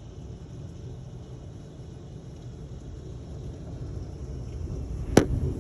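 Steady heavy rain, with a low rumble of thunder building over the last second or two. One sharp click about five seconds in.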